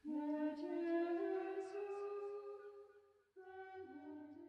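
A woman's voice singing a slow hymn melody unaccompanied, in long held notes: one phrase, a brief break a little past three seconds, then the next phrase begins.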